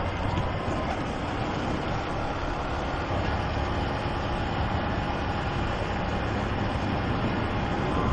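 Honda CG 125 Fan motorcycle's single-cylinder four-stroke engine running steadily while cruising, heard from the rider's position together with wind and road noise.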